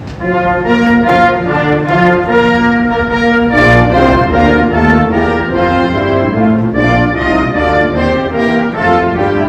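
Brass band playing a slow melody in held notes, with trombones and other low brass under the tune, starting just after the beginning.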